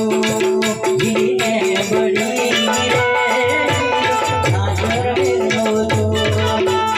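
Gujarati folk music with a fast, even beat of drums and rattles under held melody notes.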